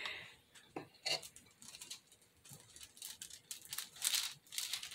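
A knife scraping and lifting a soft spackle ice cream scoop off the crinkly sheet it sits on: a few light scrapes and crinkles, most of them in the second half.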